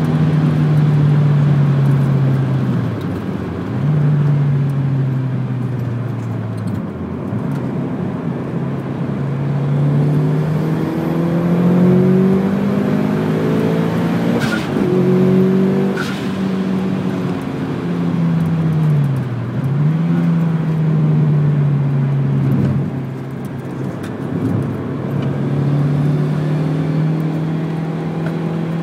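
Mitsubishi Lancer Evolution's turbocharged four-cylinder engine heard from inside the cabin at track pace, its note climbing under acceleration and dropping sharply at several gear changes and lifts. Two sharp clicks come about halfway through.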